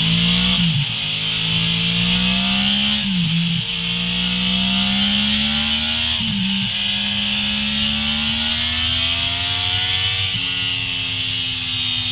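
Yamaha MT-10's crossplane inline-four, breathing through a MIVV Suono slip-on exhaust, accelerating through the gears on a dyno. Engine pitch climbs steadily in each gear and drops at four upshifts, each gear lasting longer than the one before, over a steady hiss.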